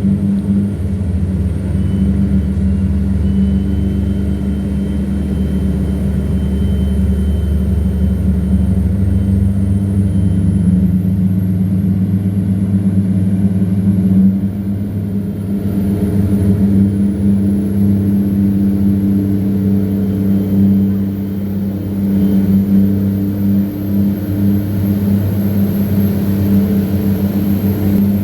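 Tugboat's diesel engine running steadily under load while towing cargo barges upstream against a flood current: a loud, even, low drone.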